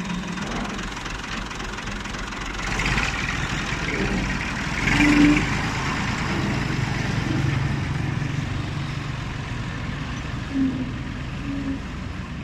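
Tractor engine running steadily, swelling louder briefly around three and again around five seconds in.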